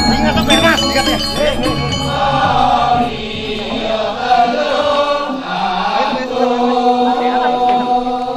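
A chorus of voices chanting a slow Sanghyang ritual song in unison, holding long notes. Sharp metallic clinks, like small bells, sound under the chant for the first two seconds.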